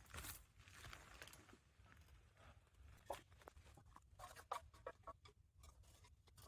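Faint, irregular crinkling and clicking of plastic litter being handled during sorting, busiest in the middle of the stretch.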